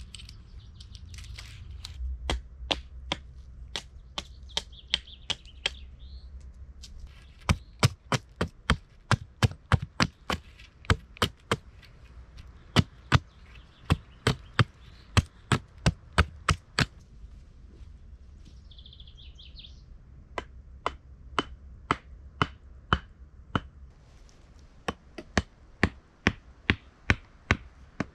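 Hatchet chopping a point onto a wooden stake: sharp knocks about two a second, in long runs with short pauses between them.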